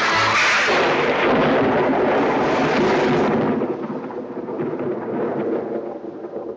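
A thunderclap that breaks at once into a long rolling peal: loud for about three seconds, then dying away into a lower rumble.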